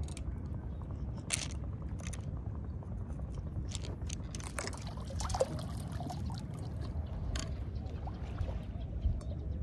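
Seawater lapping and splashing, with short sharp splashes now and then over a steady low rumble.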